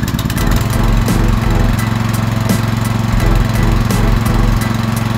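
The small four-stroke petrol engine of a PowerPlus POWXG9100 pressure washer running at a steady pitch on its first test run.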